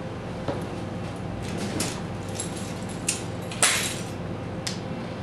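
A few short clicks and rustles over a steady low hum: handling noise as over-ear headphones are picked up and pressed onto the ears. The loudest is a brief rustle about three and a half seconds in.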